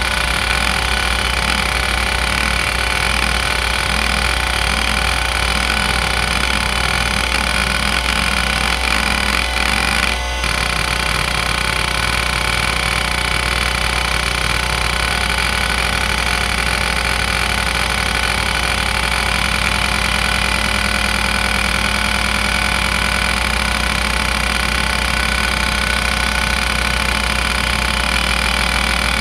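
Seagate ST3211A 210 MB IDE hard drive, a relabelled Conner CFS210A, running a seek test. The head actuator seeks in sweeping and then back-and-forth patterns over the steady whine of the spinning platters. There is a brief break about ten seconds in, where the pattern changes.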